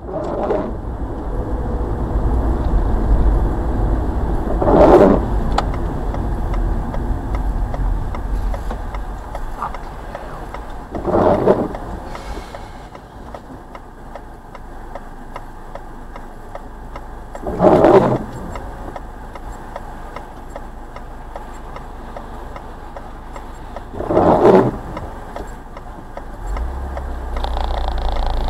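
Car cabin road and engine noise in the rain, with the windscreen wipers on intermittent sweeping across the glass four times, about every six and a half seconds. The rumble drops as the car slows to a stop and rises again near the end as it pulls away.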